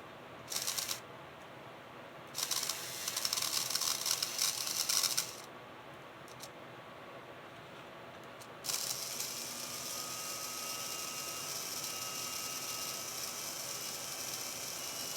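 Model GP20 locomotive's small electric motor and gears running. It starts in a few short runs, then runs steadily from about nine seconds in with a faint thin whine. The chirping squeal, caused by poorly lubricated gears in factory-sealed housings, is easing after fresh lubrication.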